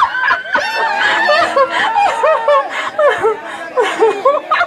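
Several voices laughing and chuckling, one after another and overlapping, with bits of speech mixed in: a recorded laughter track.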